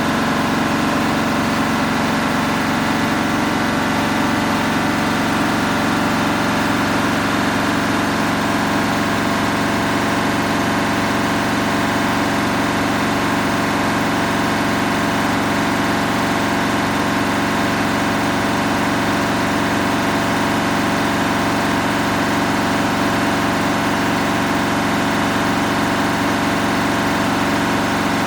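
Samsung EcoBubble washing machine with its drum turning without a break: a steady machine hum with several constant tones, no pauses or changes.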